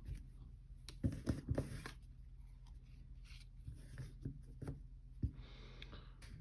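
Trading cards being handled, slid and flipped through one by one: soft taps and rubs of card stock, clustered about a second in, with another light rub near the end.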